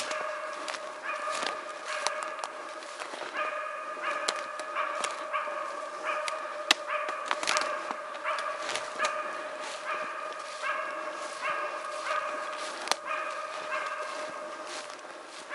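Laika hunting dog barking in a steady, unbroken run of about one to two barks a second, the dog holding a moose at bay. Two sharp snaps cut in, one about a third of the way through and one near the end.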